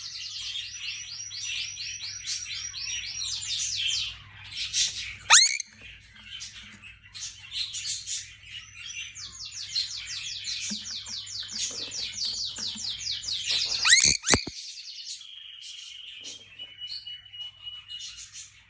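A bird singing long runs of fast repeated notes, broken twice by a loud sweeping note, with a held thin whistle near the end.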